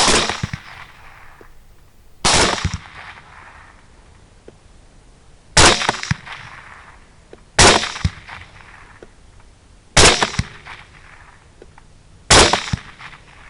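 Six rifle shots spaced about two to three seconds apart, fired at hogs in a field at night. Each is a sharp crack followed by a short echoing tail.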